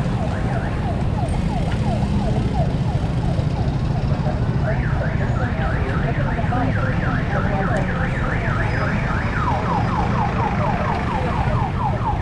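An electronic siren sounding in a fast yelp, quick rising sweeps about four a second. It is faint at first, climbs to a higher pitch about four seconds in, and drops lower again near the end, over steady wind and road rumble.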